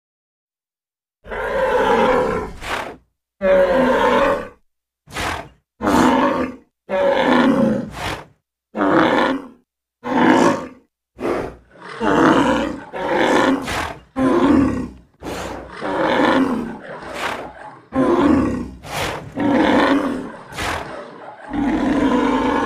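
Big cat growling and roaring, a rapid series of more than a dozen short growls one after another, starting about a second in and running closer together toward the end.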